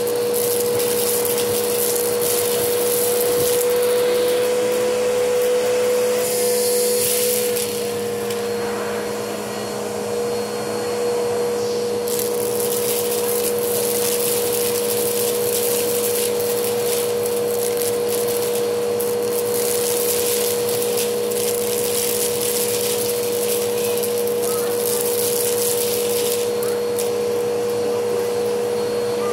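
Vacuum cleaner running steadily with a whine, its bare hose sucking up dry egg noodles from carpet. The noodles crackle and rattle up the hose in long bursts, which thin out in the last few seconds as the pile is cleared.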